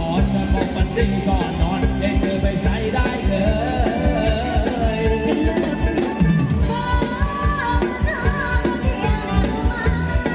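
Live Thai ramwong dance-band music: a steady drum-kit beat under a wavering melody line.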